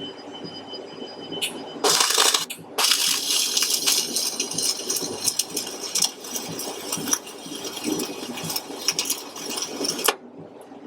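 Flux-core arc welding: a short crackling burst, then a steady spattering crackle for about seven seconds that cuts off suddenly.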